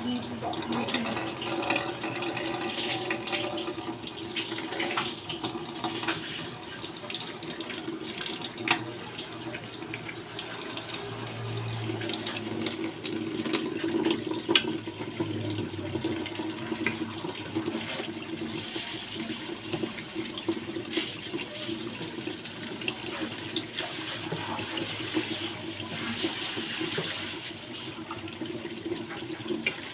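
Water running steadily from a kitchen tap, with scattered clicks and knocks.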